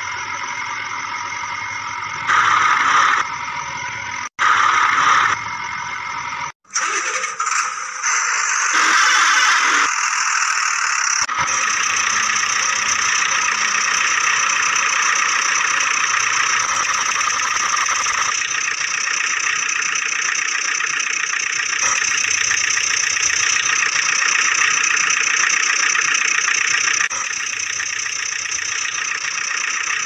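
Truck engine sound running steadily, with abrupt cuts and changes in the first ten seconds, then an unbroken steady run.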